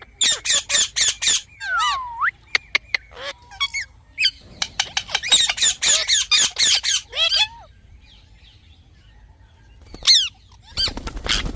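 Parrot screeching in fast runs of sharp, high calls: a quick burst of about six near the start, a few scattered calls and clicks, a longer rapid run in the middle, and a few more calls near the end.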